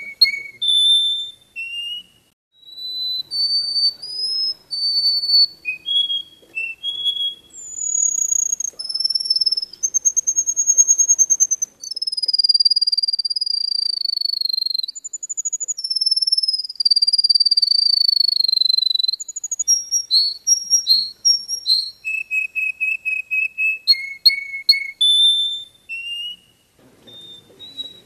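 Canary singing a long continuous song of clear whistled notes: runs of rapidly repeated notes, long drawn whistles that slide down in pitch through the middle, and quick stuttering trills near the end.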